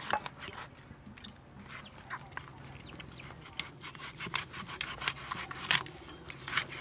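A large knife cutting up a raw goose carcass: irregular wet cracks and snaps as the blade works through meat, joints and bone, the loudest crack near the end. Short high chirps sound in the background.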